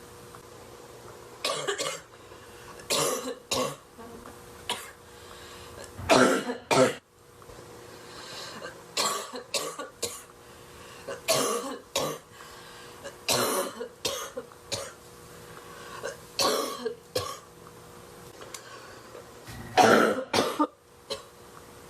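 A woman coughing repeatedly from deep bong hits, in harsh bursts every second or two, with loud double coughs about six seconds in and again near the end.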